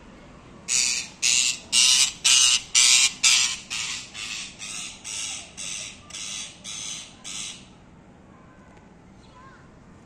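Green parrot giving a rapid series of about a dozen harsh squawks, about two a second, loudest at first and then fading after a few seconds.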